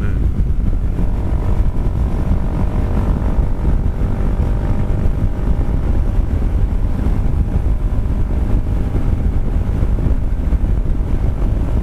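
Kymco Xciting 400i maxi-scooter at steady cruising speed: a constant low wind rumble on the microphone over the engine's drone, with a faint steady whine for a few seconds in the first half.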